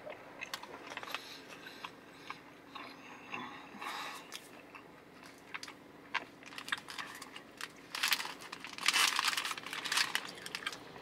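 Close-up chewing of a pizza wrap, with small mouth clicks, and the paper wrapper crinkling as it is handled. The louder rustling comes about four seconds in and again near the end.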